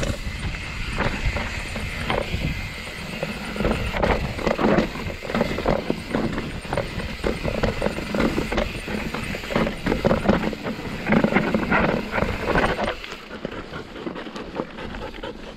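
Mountain bike descending a rocky trail: tyres clattering over rocks and the bike rattling with each hit over a constant rumble. The clatter eases and gets quieter near the end as the ground turns smoother.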